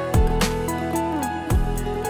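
Music with no singing: sustained tones over a few deep drum hits that fall in pitch.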